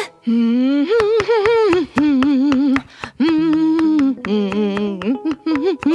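A woman humming a cheerful tune in held, wavering notes, with quick knife taps on a cutting board as she chops a vegetable.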